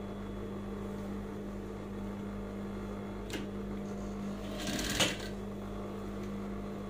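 Industrial sewing machine over a steady motor hum, with a short run of rapid stitching about four and a half seconds in and a single click a little earlier.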